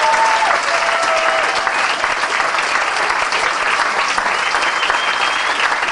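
Audience applauding steadily after a darbuka drum solo, with a few faint calls or whistles above the clapping.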